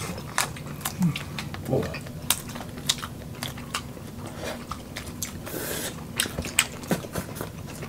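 Close-miked eating sounds of several people biting into and chewing boiled shrimp and roast beef: many short, sharp wet clicks, smacks and crunches, with a brief hiss about five and a half seconds in.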